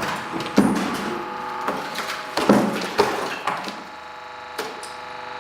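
Hydraulic press crushing a bucketful of frozen Orbeez water beads: a run of sharp cracks and crunches, about six in the first five seconds, over a steady hum.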